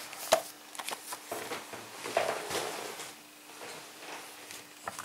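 Paper catalogue being handled: glossy pages turning with soft rustles and a few light knocks, over a faint steady hum.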